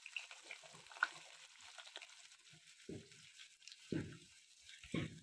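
Freshly added chopped onions sizzling faintly in hot sesame oil with whole spices in a kadai. From about three seconds in, a low thump comes roughly once a second.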